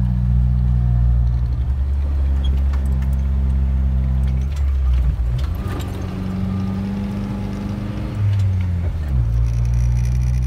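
A Jeep's engine running as it drives along beach sand, heard from inside the cab. The engine note changes about halfway through, rises briefly about eight seconds in, then settles back.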